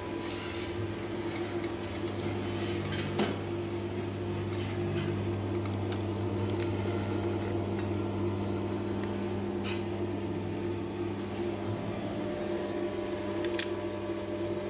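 Electric-motor-driven screw oil expeller running steadily while pressing sacha inchi seeds: a steady hum, broken by three short sharp clicks.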